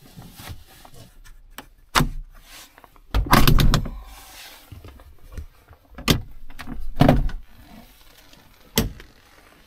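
Pickup camper shell's rear glass hatch being unlatched and pushed open from inside: a string of clunks and knocks, with a longer, louder rattling clatter about three seconds in.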